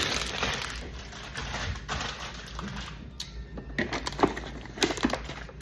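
Bottles and food containers being set onto plastic refrigerator shelves and door bins: irregular light clicks and knocks, with several sharp ones in the second half.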